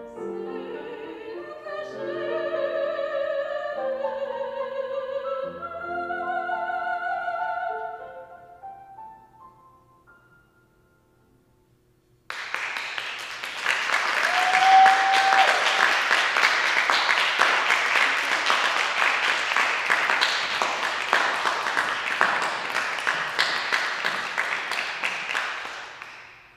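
A woman's classical operatic voice with grand piano accompaniment sings a final phrase that dies away about eight seconds in. After a couple of seconds of silence, an audience applauds for about fourteen seconds, and the applause fades out near the end.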